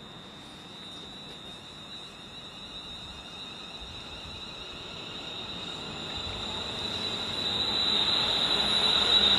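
London Northwestern Railway electric multiple unit moving through the platform, its running noise growing steadily louder, with a steady high-pitched electric whine strengthening toward the end.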